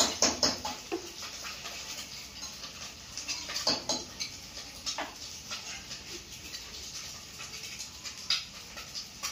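A metal spoon stirring in a steel cooking pot, clinking and scraping against its sides in scattered knocks, with a cluster in the first second and others around four and five seconds in.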